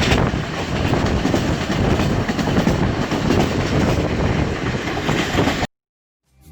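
Sir Syed Express passenger train running at speed, its wheels clattering steadily on the rails. The sound cuts off suddenly near the end.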